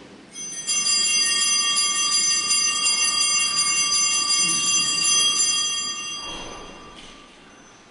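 Altar bells ringing steadily for about six seconds, then dying away, marking the elevation of the host at the consecration.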